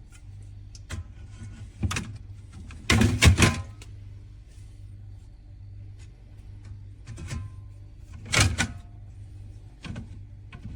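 Drink cans and a plastic fridge can dispenser being handled: a series of knocks and clatters, the loudest a cluster about three seconds in and another about eight and a half seconds in, over a steady low hum.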